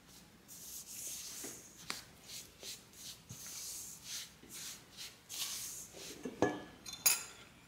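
Spatula stirring crumbly pie-crust dough in a stainless steel bowl: a run of soft, irregular scraping strokes, with a few sharper knocks of the spatula on the bowl, the loudest near the end.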